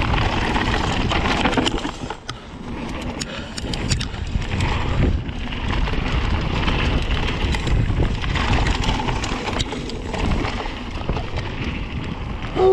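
Mountain bike riding fast down a rough trail: wind rushing over the action camera's microphone, tyre noise, and frequent rattling clicks and knocks from the full-suspension bike over rough ground. A brief loud pitched sound near the end.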